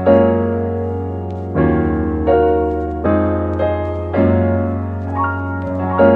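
Background piano music: gentle chords struck about once a second, each ringing out and fading before the next.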